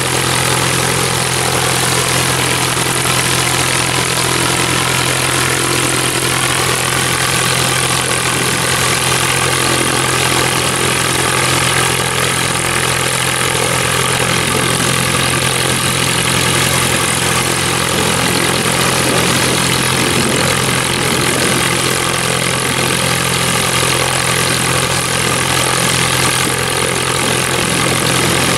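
Beagle Pup light aircraft's piston engine idling steadily, its propeller turning.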